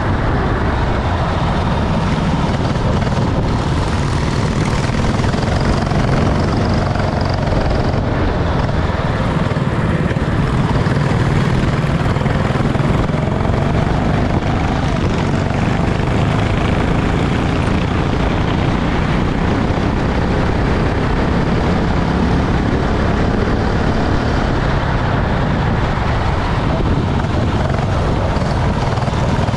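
Racing go-kart engine running, heard through a loud, steady rushing noise, with the engine pitch rising once near the middle.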